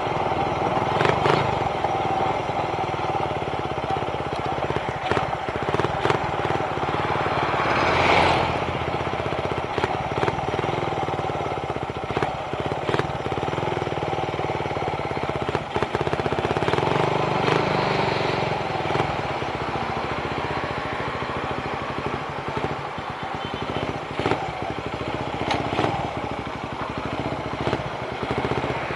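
Suzuki Raider 150 carburetted motorcycle's single-cylinder engine running steadily on the road, with wind noise on the helmet microphone and occasional short knocks.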